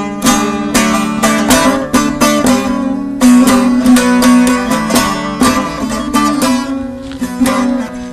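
Bağlama (Turkish long-necked saz) played solo: a plucked melody of quick repeated strokes over a ringing low drone string, louder from about three seconds in.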